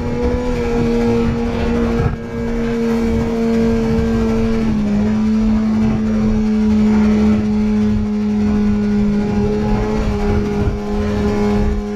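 Inline-four sport bike engine running at track speed with wind noise; its steady note steps down slightly in pitch about five seconds in.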